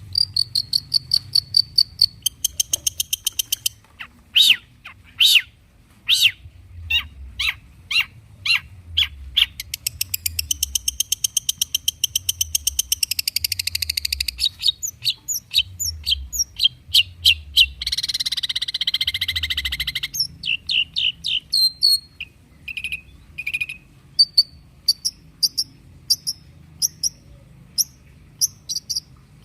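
Long-tailed shrike (cendet) singing a varied song full of mimicked calls: fast rattling trills, a quick trill that falls in pitch, sharp repeated chips, and a harsh buzzy rasp about two thirds of the way through.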